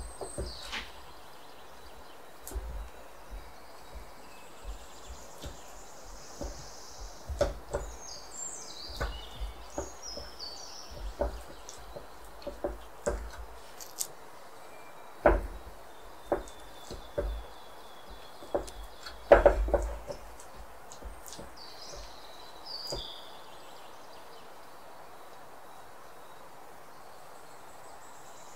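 Irregular light clicks and taps of a silicone spatula against a metal muffin tin as butter is spread in the cups and the tin is handled, a few louder knocks among them, with birds chirping now and then in the background. The tapping stops a few seconds before the end.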